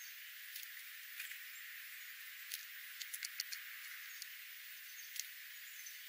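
Sharp clicks and taps of birds pecking at scattered seed on the ground: single clicks, then a quick run of five about three seconds in and one more near the end, over a steady hiss, with a few faint high chirps.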